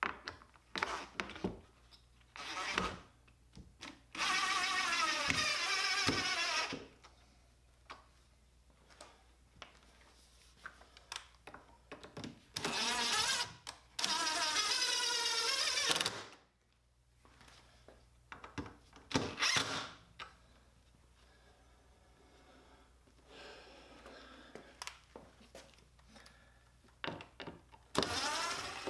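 Power drill running in three short bursts, about four, twelve and fourteen seconds in, with scattered knocks and clicks of wood and hardware being handled between them.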